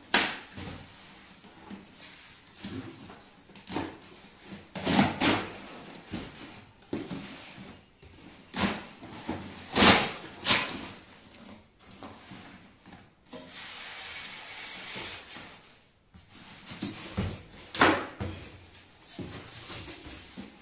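A cardboard box being torn open and a PC cabinet in a plastic bag and foam end caps being pulled out of it: a run of irregular cardboard scrapes, rustles and knocks, with a longer steady rustle for about two seconds around two-thirds of the way through.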